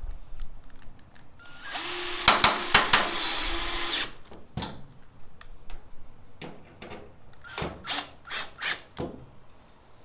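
Cordless drill running for about two seconds, driving a self-tapping screw to fasten a hood pin, with a few sharp clicks as it runs. Scattered light clicks and knocks of hand tools and parts follow.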